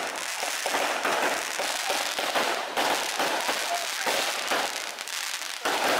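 Japanese 'goldfish' water fireworks (suichū kingyo hanabi) darting across the water surface, hissing and crackling with many rapid pops, growing louder near the end.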